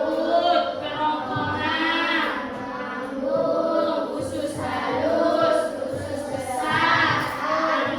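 A group of voices singing a song together, in held notes of about a second each.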